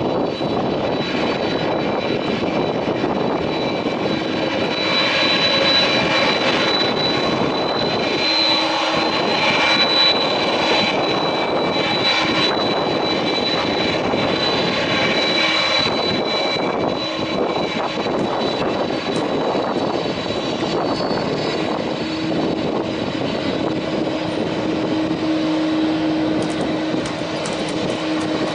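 Airbus A330 twin jet engines running steadily as the airliner taxis past, a high whine over a continuous rush; the whine is strongest in the first half, and a low hum comes up near the end.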